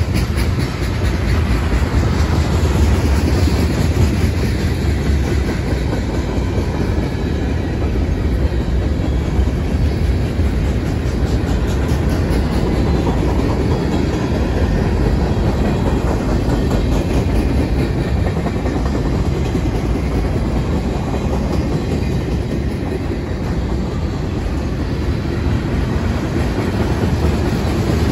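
Freight train of tank cars and covered hoppers rolling past: a steady rumble of steel wheels on rail with a running clickety-clack of wheels over the rail joints.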